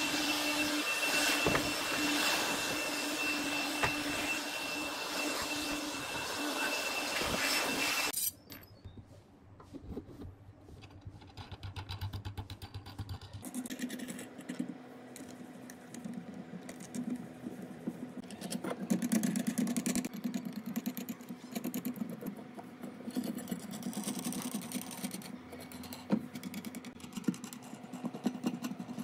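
Electric orbital sander running steadily, then cutting off suddenly about eight seconds in. After that come quieter light metal clinks and taps as a threaded steel rod and hex nuts are handled and fitted through wooden blocks on a pine board.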